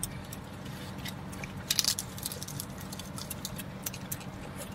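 Close-up mukbang eating sounds: hands pulling at roast pig meat and lettuce, and chewing. They come as scattered crackles and clicks, with a louder burst of crackling about two seconds in, over a steady low hum.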